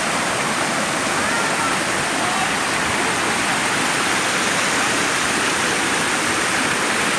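Gürpınar Waterfall: water falling and rushing in a steady, even, loud wash of sound with no breaks.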